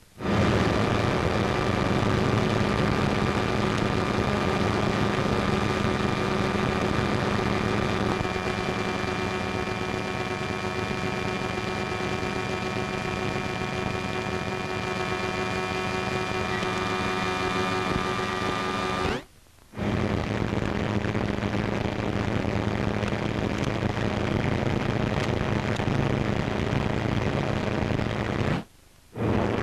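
A steady mechanical drone with a constant hum, as of engines running on an airfield, on an old optical film soundtrack. It drops out briefly about two-thirds through and again near the end.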